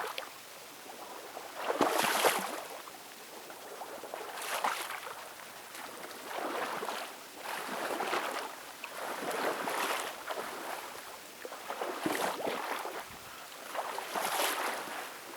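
Someone wading through shallow swamp water, with a slosh at each stride, about every one to two seconds.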